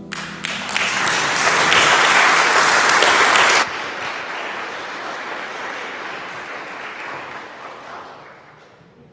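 Congregation applauding as the last sung note dies away. The clapping is loudest for the first three and a half seconds, drops suddenly, then trails off and dies out near the end.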